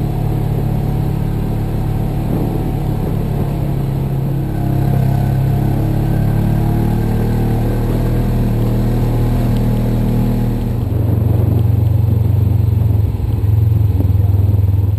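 Polaris RZR side-by-side's engine running steadily as it drives along a gravel trail, heard from onboard. About eleven seconds in the engine note changes and gets a little louder.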